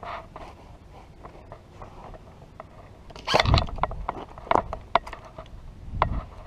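Handling noise from a player's gear and rifle rubbing and knocking against the barrier: scattered sharp clicks, with the loudest scrape and thump about three and a half seconds in and a smaller thump near the end.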